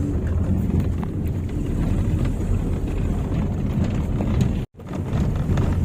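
Car driving along, heard from inside the cabin: a steady low rumble with small faint knocks and rattles. The sound drops out for an instant near the end.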